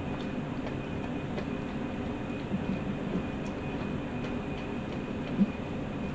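An Afghan hound eating from a plate right next to the microphone: wet chewing and licking with small clicks, and one sharp knock against the plate near the end, over a steady low rumble.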